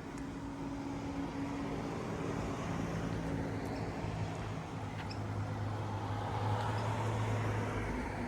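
A vehicle engine running under road noise: a steady hum that shifts to a lower, louder drone about halfway through, then cuts off abruptly.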